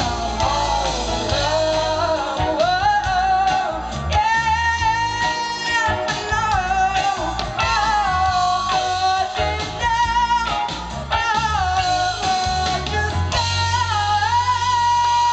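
A woman singing lead with a live band, a sung melody over guitar and bass, heard at a live concert. Near the end she holds one long high note.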